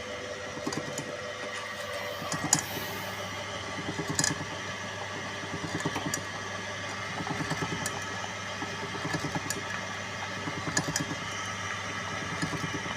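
Animal-feed pellet mill running: a steady mechanical hum with fast rhythmic pulsing, and a few sharp clicks or knocks, the loudest about two and a half seconds in.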